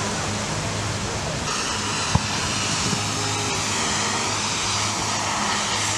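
A fishing boat's engine running steadily under a dense rushing hiss of water churned by leaping fish, with one sharp pop a little over two seconds in.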